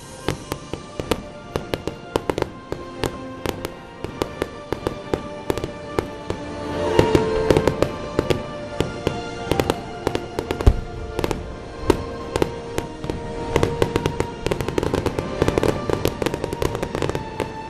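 Fireworks bursting and crackling in quick succession, with music playing. The popping gets louder and denser about seven seconds in.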